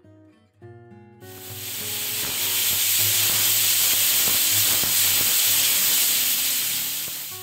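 Stovetop pressure cooker whistling: the weighted valve lifts and lets out a jet of steam in a loud, steady hiss that starts about a second in, swells within a second and holds for about six seconds. It is the sign that the cooker is up to pressure while the dal cooks, one of the three or four whistles counted. Soft guitar music plays underneath.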